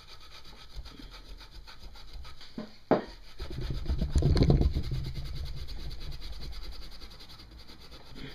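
Hand scrubbing of carbon deposits inside a motorcycle cylinder head with a Scotch-Brite pad, a steady rubbing, with one sharp knock about three seconds in and harder, louder scrubbing just after it.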